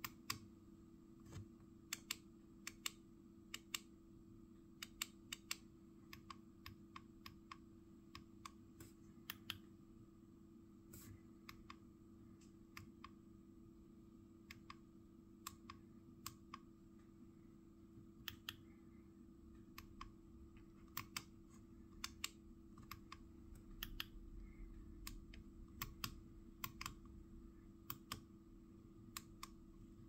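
Control knob on an Asus ROG Azoth keyboard clicking as it is worked through its functions: many sharp, irregular clicks, sometimes in quick pairs, over a faint steady hum.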